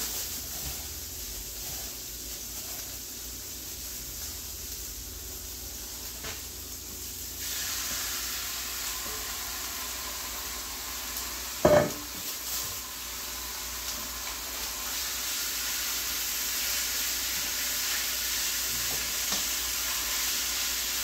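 Onions and green peppers sizzling in a hot skillet. About a third of the way in, the sizzle jumps louder as thinly sliced beef is tipped into the pan, and the frying goes on steadily while it is stirred. About halfway through there is one loud, short metal clank from the stainless mixing bowl being set down.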